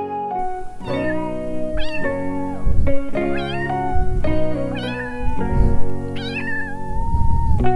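A domestic cat meowing, four short meows about a second and a half apart, over background music.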